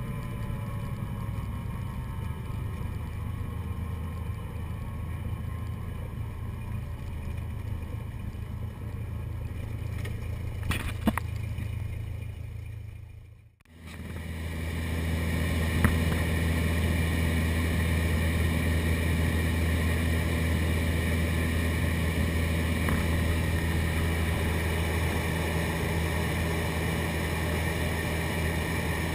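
Single-engine propeller aircraft engine droning steadily, heard inside the small cabin, with a few faint clicks about eleven seconds in. About halfway through the drone fades out briefly and returns louder and steady.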